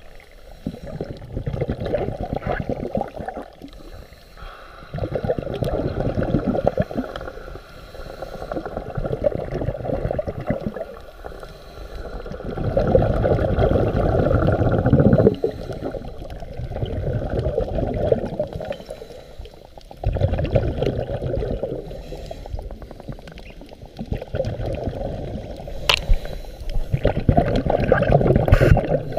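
A scuba diver's breathing through the regulator, with exhaust bubbles gurgling, heard dull and low underwater. It comes in swells of bubbling about every three to four seconds, one for each breath.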